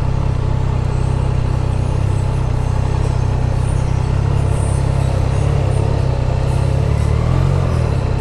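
Triumph Tiger Sport 660 motorcycle's three-cylinder engine running steadily at low revs, with a slight change in its note about seven seconds in.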